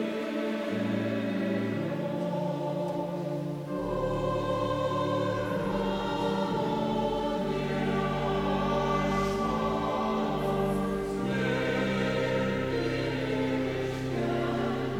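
Church choir singing a slow Lithuanian Lenten hymn in long, held chords.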